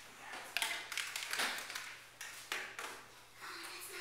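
A few light taps and knocks as kitchen things are handled on a stove top: a spatula is set down and a coffee pot is picked up. The loudest knock comes about a second and a half in.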